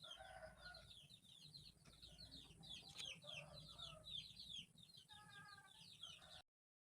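Faint birds chirping in quick falling notes, with a chicken clucking now and then; the sound cuts off abruptly about six seconds in.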